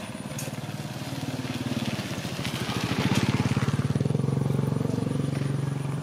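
A small engine runs close by, like a passing motorbike, with a steady rapid pulsing beat; it grows louder over the first three seconds and then eases off slightly.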